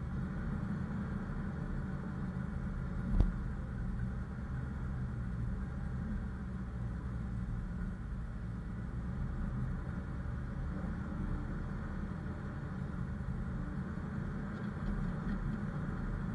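Off-road vehicle's engine running steadily at low speed with a low rumble as it drives along a snowy, icy trail; a single sharp thump about three seconds in.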